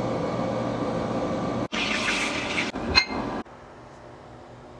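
Home Elec air fryer's fan running steadily while it cooks, with a steady hum. About 1.7 s in the sound cuts to a brighter hiss with a sharp click about three seconds in, then drops to a faint steady hum.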